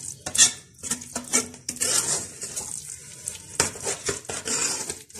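A steel spoon stirring thick saag (cooked mustard greens) in a pressure cooker pot, scraping and knocking against the metal sides in repeated, irregular strokes.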